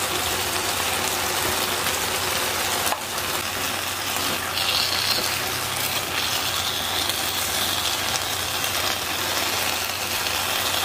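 Nakgopsae stew (octopus, beef tripe and shrimp) sizzling steadily in a foil pan on a tabletop burner. Around the middle, chopsticks stir the ramen noodles into the stew.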